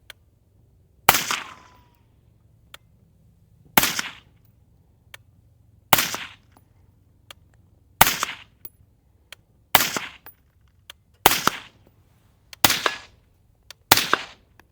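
AR-15 rifle fired semi-automatically, eight single shots at an unhurried pace, each a sharp crack with a brief echo trailing off.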